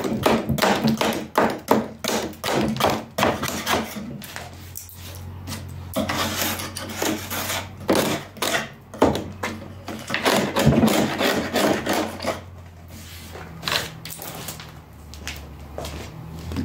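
Hand scraper worked along the edge of a cast granite composite sink in its fiberglass mold, scraping and chipping off the hardened flash in quick strokes, several a second. The strokes thin out and stop over the last few seconds.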